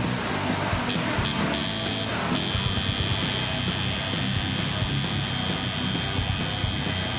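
Tattoo machine buzzing in a few short bursts, then running steadily from about two and a half seconds in, over background music with drums.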